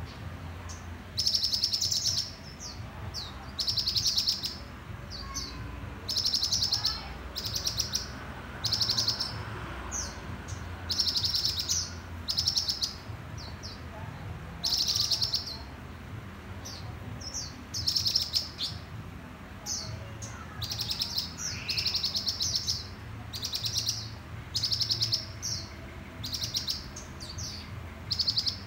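Caged red sunbirds singing: high, rapid trilled phrases about a second long, repeated every one to two seconds and sometimes overlapping as several birds sing. A steady low hum runs underneath.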